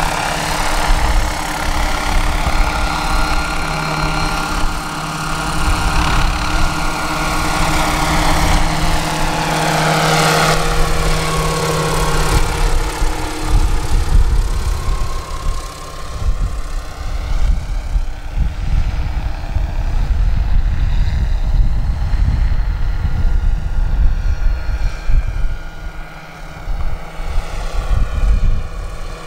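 Large-scale radio-controlled Huey helicopter in flight: a steady mechanical whine from its drive and rotors, passing closest about ten seconds in. After that the steady tones fade and the sound thins as it flies farther off.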